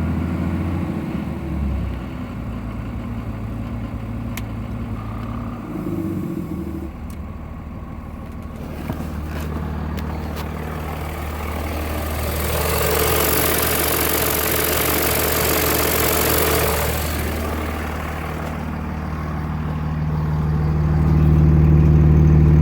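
2003 Cummins 5.9-litre inline-six diesel running at a high idle with a fast lope: it has started to hang at high idle once warm, which the owner wonders is a bad injector. About halfway through, a rushing hiss with a steady whine rises over the engine for about five seconds, and the engine grows louder near the end.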